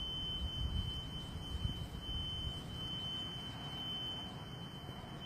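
Unexplained noise from the sky heard from indoors: a low, fluctuating rumble with a steady high-pitched tone over it.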